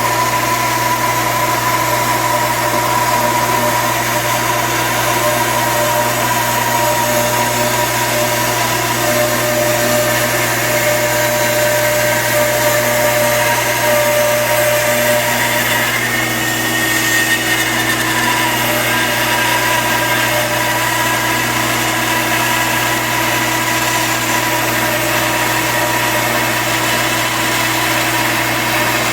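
Bandsaw running steadily as it resaws a board, a continuous machine hum with blade noise; its tones shift slightly about halfway through.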